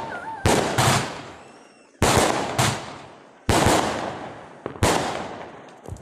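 Aerial fireworks bursting in the sky: about seven sharp bangs, some in quick pairs, each trailing off in an echo, with a short whistle at the start.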